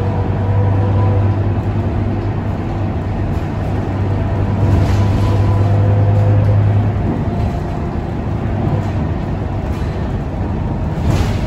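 Scania K230UB city bus heard from inside the cabin while under way: its diesel engine and drivetrain give a steady low drone with a faint whine over road noise. The drone eases off about seven seconds in.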